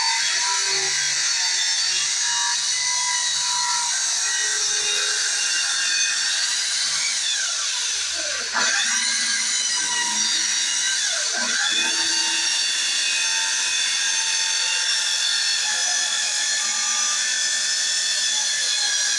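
Corded handheld power tool running and cutting into a wooden panel door, with a steady high-pitched motor whine. Twice, about halfway through and again a few seconds later, the whine drops in pitch and climbs back up.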